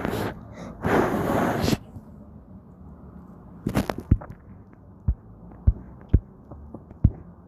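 Wind buffeting the microphone in two loud rushing gusts over the first two seconds, the second cutting off suddenly, followed by scattered soft thumps and knocks.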